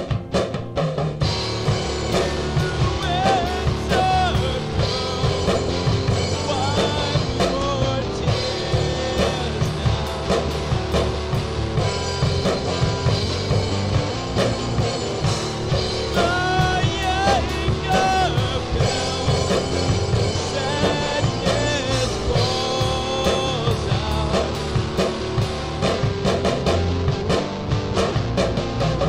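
Home-recorded rock band song with a drum kit, bass and a wavering melodic lead. After a drum break, the full band comes in about a second in and plays on steadily.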